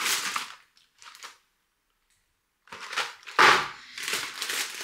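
Grocery packaging and shopping bags rustling and knocking as items are unpacked, with a sharp knock about three and a half seconds in. The noise stops dead for about a second in the middle.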